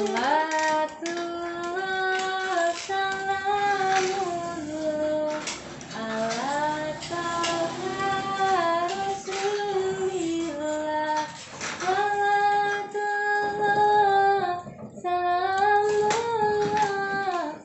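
A woman singing an unaccompanied song in long held notes, with short breaks between phrases.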